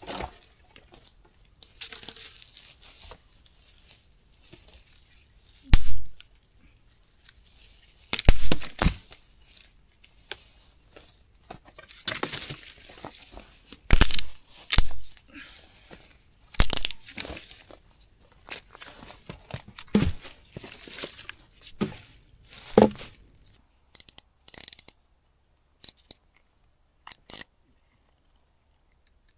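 Dead wood being broken and pulled from undergrowth: a series of sharp, loud cracks of snapping branches, with rustling and crunching of twigs and leaves in between. Near the end, a few short high clicks.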